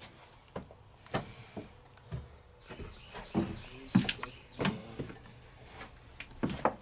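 Footsteps going down stairs: a series of irregular knocks and scuffs, roughly one every half second to a second.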